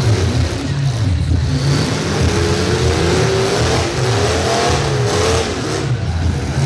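Demolition-derby trucks' engines running hard and revving. Through the middle the engine pitch wavers up and down as the throttle is worked, over a steady low rumble.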